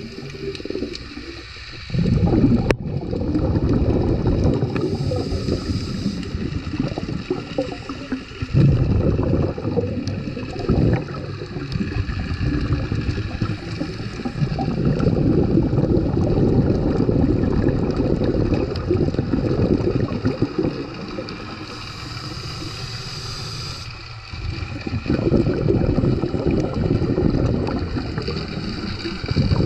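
Underwater noise picked up by a GoPro in its waterproof housing: a low, muffled rumble and gurgle of moving water that swells and dips, briefly dropping away a few times.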